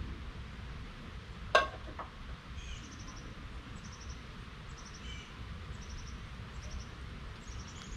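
Short, high insect chirps, each a quick run of a few pulses, repeating about once a second over a low wind rumble. A sharp knock, the loudest sound, comes about one and a half seconds in, with a fainter one just after.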